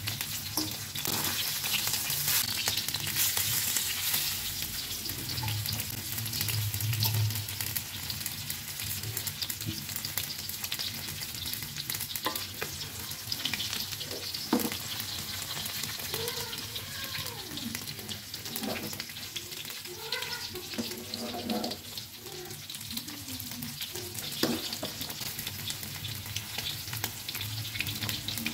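Flour- and cornstarch-coated chicken thighs shallow-frying in oil in a wok: a steady crackling sizzle, with a few sharp taps along the way.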